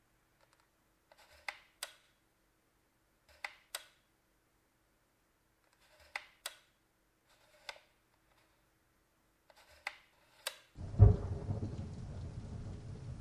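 Red View-Master's lever being pressed and released to advance the picture reel: pairs of sharp clicks every two to three seconds. Near the end this gives way suddenly to steady rain with a loud low rumble of thunder.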